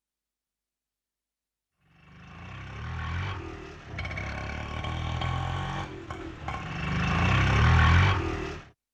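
Auto rickshaw engine running, coming in from silence about two seconds in, dipping twice and swelling to its loudest just before it cuts off abruptly.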